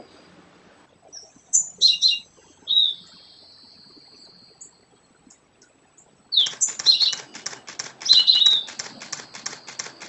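Birds chirping in short high notes, then a thin steady whistle. From about six seconds in, a DSLR shutter fires in a rapid continuous burst of about eight clicks a second, with more bird chirps over it.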